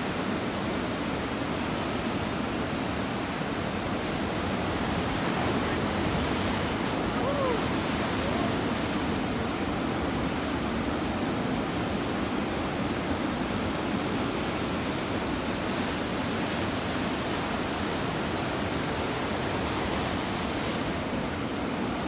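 Steady roar of large ocean surf breaking and whitewater washing in, swelling slightly several seconds in.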